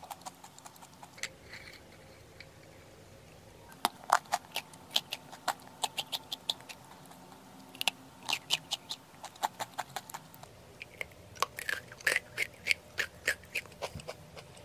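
A person chewing crisp black-sesame whole-wheat protein snack sticks: runs of sharp, crackly crunches, with a pause of about two seconds after the first bites.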